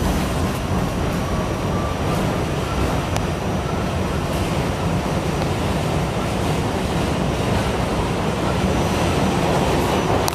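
Steady rumble and rushing noise of a moving vehicle heard from inside, with a faint thin whine now and then.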